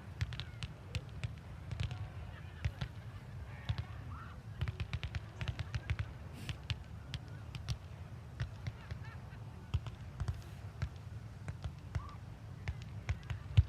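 Fireworks crackling and popping, a dense run of sharp cracks several times a second over a steady low rumble.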